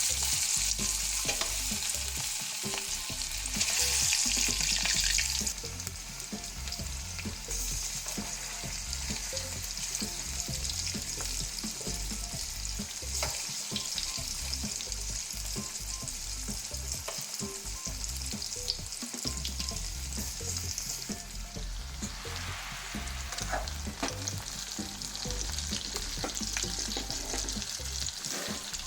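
Marinated chicken pieces frying in hot oil, a steady sizzle with louder spells in the first second and about four seconds in, and scattered clicks of a spoon stirring them, being fried until crisp.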